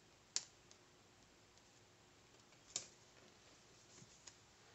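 Near silence with two short, light clicks about two and a half seconds apart and a few fainter ticks near the end, from hands pressing a sticker onto a paper planner page.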